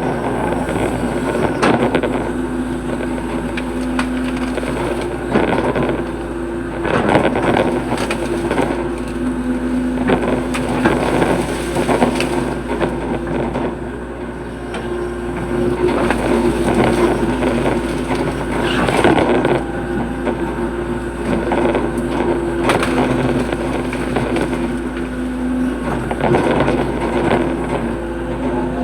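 Hitachi hydraulic excavator's diesel engine running steadily under load while digging a ditch, with repeated knocks and scrapes from the digging throughout.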